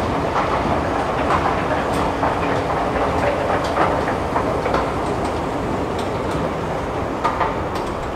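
Escalator running: a steady mechanical rumble with irregular clacks from the moving steps.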